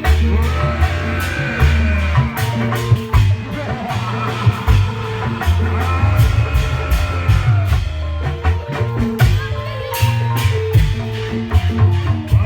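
Loud music with regular drum strokes and a stepping bass line, with a melody above.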